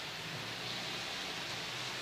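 Steady hiss of summer rain falling over a town.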